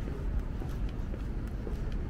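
City street ambience: a steady low rumble of traffic, with faint footsteps clicking on the pavement.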